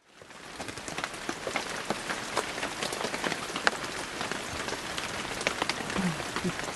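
Rain falling, with many separate drop taps over a steady hiss; it fades in over the first second.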